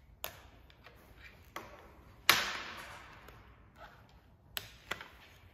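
Metallic clicks from the cocking action of a Snowpeak M60 .177 PCP air rifle as it is worked and de-cocked, with one much louder sharp bang about two seconds in that rings on briefly in the range shed, and two more clicks near the end.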